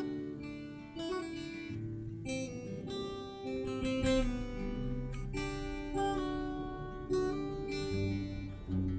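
Acoustic guitar playing a slow instrumental passage, with new chords or notes about once a second.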